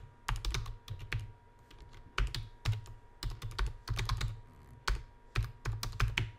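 Typing on a computer keyboard: irregular runs of key clicks, with a short pause a little over a second in.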